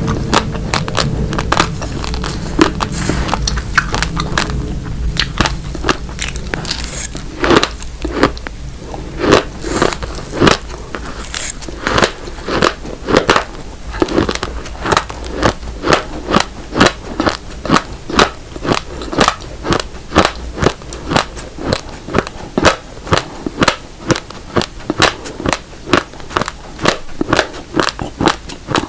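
Close-miked crunching of raw, uncooked black and red rice grains being bitten and chewed, in sharp crisp crunches that settle into a steady rhythm of about two a second after the first several seconds.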